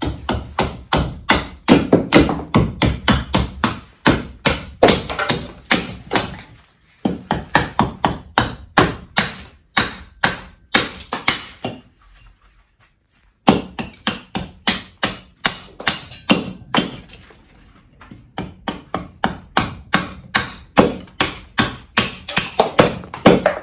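RobinWood carving hatchet chopping into a length of green wood held upright on a chopping block, carving chips off it. Quick blows about three a second in runs, with a longer pause about halfway through.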